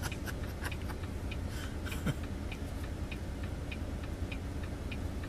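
Vehicle turn-signal indicator ticking steadily, about three ticks a second, over the low hum of the idling engine heard from inside the cab while stopped at a light.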